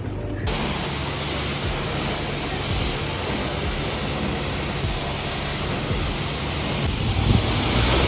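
High-pressure water jet from a car-wash spray wand hitting a car's bodywork and soft top: a loud, steady hiss that starts suddenly about half a second in.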